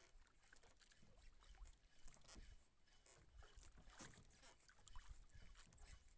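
Near silence: a faint low rumble with scattered small ticks.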